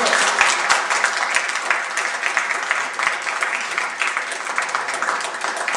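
A small crowd applauding, many hands clapping together, thinning out near the end.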